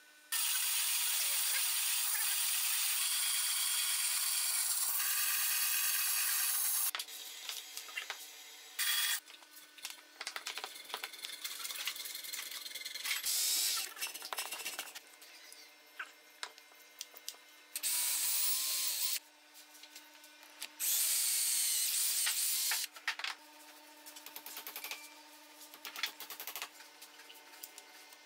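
Cordless drill boring into wood in five bursts, the longest about seven seconds at the start and the others one to two seconds, with small clicks and taps of the jig and parts being handled in between.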